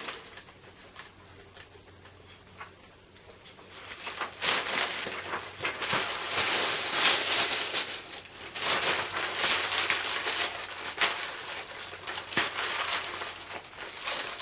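Rustling and crinkling of makeup packaging being handled, with scattered small clicks. It starts faint and becomes louder and busier from about four seconds in.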